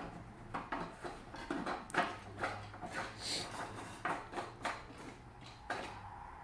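Repeated sharp clicks, about two a second, from the electronic spark igniter of a homemade PVC combustion potato cannon being pressed again and again while the deodorant-fuelled charge has not yet fired. A brief hiss comes about three seconds in.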